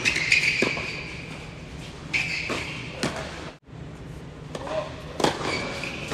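Tennis balls struck by racquets and bouncing during a doubles rally on an indoor hard court, several sharp hits echoing in the hall. A high squeaking tone sounds over some of them.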